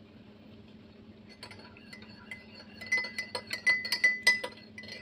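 A metal spoon stirring milk in a ceramic mug, clinking rapidly against the sides with a ringing tone. The clinks start about a second and a half in, come about five a second, and are loudest in the second half.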